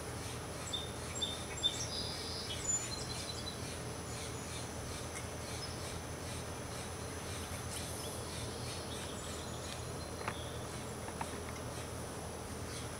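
Outdoor ambience: a steady background hiss with a faint high steady whine, and a few short high bird chirps in the first three seconds. Two faint clicks come near the end.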